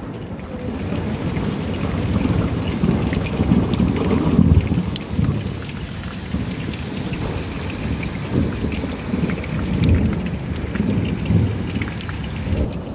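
Heavy rain pouring, with thunder rolling in low rumbles that swell and fade several times, loudest about four seconds in and again near ten seconds. Scattered sharp ticks of drops land close by.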